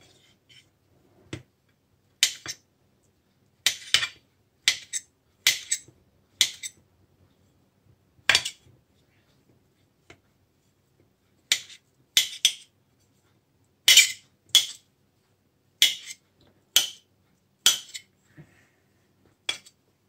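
A knife blade clicking against a ceramic plate as it cuts through soft tempeh into small cubes: sharp, short clicks in an irregular run, often two in quick succession, with pauses between.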